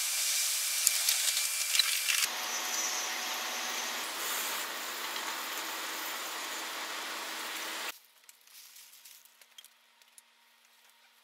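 Steady running noise of a Shinkansen bullet train heard from inside the cabin, a hiss with a faint hum, cut between two clips; the first is brighter, with faint ticks. About eight seconds in it cuts to near silence.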